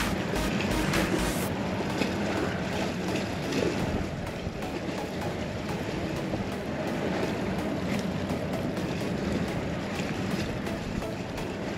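Strong sea wind blowing across the microphone, a steady rushing noise, with the sea washing around the pier below.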